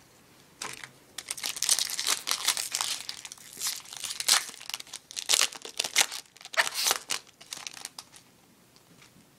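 Foil trading-card pack wrapper crinkling and tearing as it is opened by hand, in a run of irregular crackles that stops about a second before the end.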